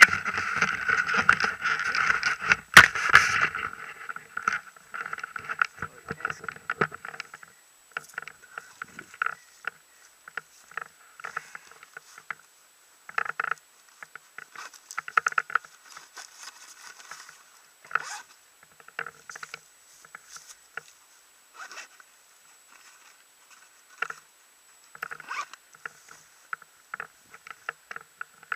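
Intermittent rustling and scraping close to the microphone as a paramotor harness, its straps and the glider lines are handled, with no engine running. It is busiest in the first few seconds, with one sharp click about three seconds in, then comes in short separate scuffs.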